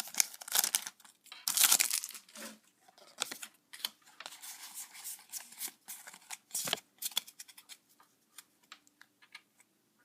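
Foil wrapper of a Pokémon card booster pack being torn open and crinkled, loudest in the first two seconds, then lighter crinkles and clicks that thin out and die away near the end.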